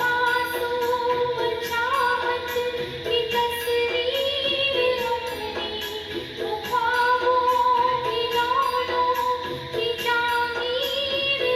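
Music: a woman singing long held notes with gentle bends, over instrumental accompaniment and a steady percussion beat.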